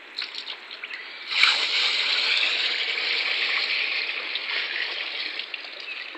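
Palm oil being poured from a container into a bucket: a few small splashes, then about a second and a half in a steady, splashing pour that slowly tails off near the end.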